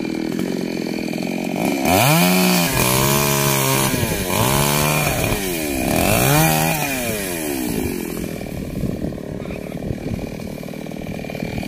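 Two-stroke chainsaw cutting tree branches, its engine revving up and dropping back three times, then running lower and steadier for the last few seconds.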